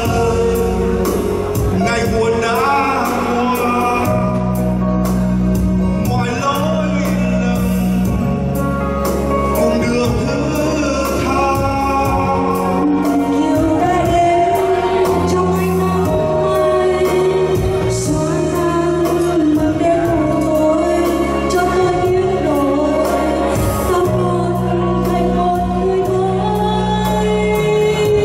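A man and a woman singing a duet into microphones over backing music.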